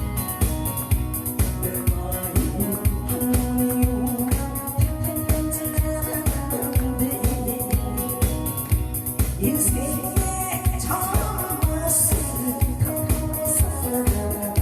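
Upbeat Korean trot music with a steady fast beat.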